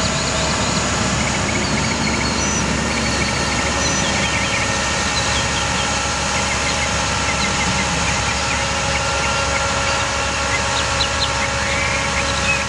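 Bucket truck's diesel engine running steadily, driving the Altec AM55's hydraulics while the boom is lowered toward its stowed position, with birds chirping now and then.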